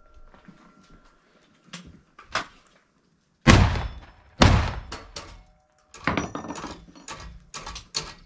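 Two black-powder gunshots about a second apart, aimed at steel plate targets, followed by a quick run of small metallic clicks and clatters from the shooter handling his gun.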